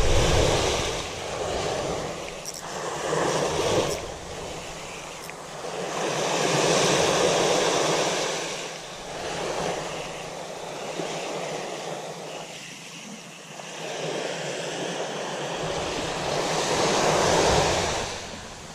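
Small waves breaking and washing up onto a sandy beach, the surf swelling and fading every few seconds.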